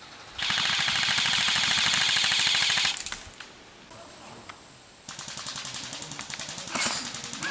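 Airsoft guns firing full-auto: a loud burst of rapid, evenly spaced shots lasting about two and a half seconds, then after a short pause a second, quieter and longer burst.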